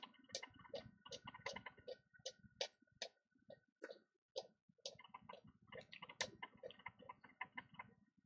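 Faint, irregular scratching clicks, a few a second, of a blade scraping an iPhone 6 logic board to expose its damaged traces, with a faint steady high whine behind.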